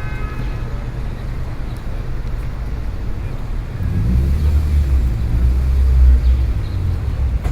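City street traffic: a steady low rumble of road vehicles, which swells louder and deeper from about four to seven seconds in as a heavier vehicle goes by.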